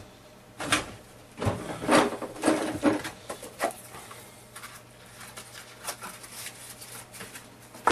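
Handling noise from rummaging through an airbrush box for the nozzle spanner: a cluster of clicks and rattles of small parts in the first three seconds, then fainter scattered ticks and one sharp click at the end.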